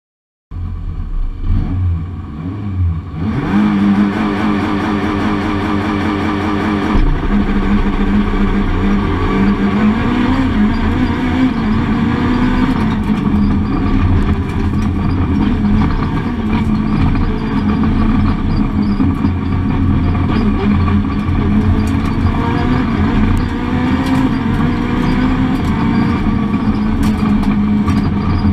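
Citroën Saxo rally car's engine at speed, heard inside the cabin: it revs hard, its pitch climbing and falling again and again as the gears change, over road and wind noise. The sound cuts in about half a second in and grows louder near the three-second mark.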